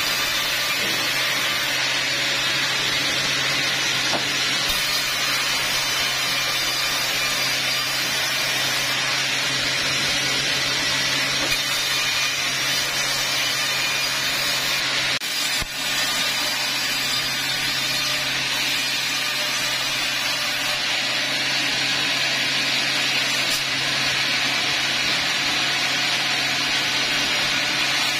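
Large vertical bandsaw mill cutting lengthwise through teak logs: a steady hiss of the blade in the wood over the machine's steady hum, with a brief dip about halfway through.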